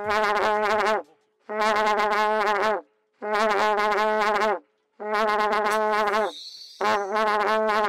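Karnai, the long Tajik brass trumpet, blown in five sustained blasts of about a second each with short breaks between them. Each note is a low, buzzy tone whose pitch wavers slightly.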